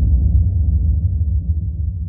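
Deep, low rumbling boom of an intro sound effect, slowly fading away.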